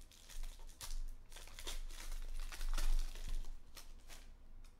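Wrapper of a 2019 Panini Stars & Stripes baseball card pack being torn open and crinkled by hand as the cards are pulled out, in a string of short, sharp crackly rustles.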